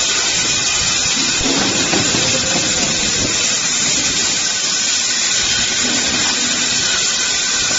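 Twin-spout bag-filling packing machine running with a steady, loud hiss.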